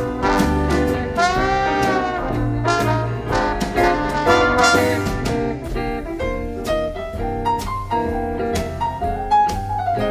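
A live big band playing jazz, with trumpets, trombones and saxophones sounding together over drums that keep a steady beat. The horns bend their notes together early on, then thin out about halfway through.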